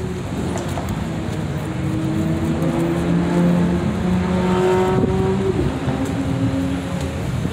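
A car engine revving, its pitch climbing slowly for a few seconds, then dropping back about five and a half seconds in.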